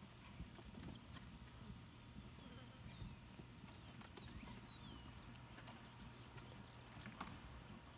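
Near silence: faint outdoor background with a few faint high chirps.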